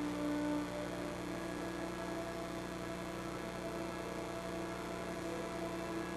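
A held musical tone fades out within the first second, leaving a steady electrical mains hum with faint lingering tones above it.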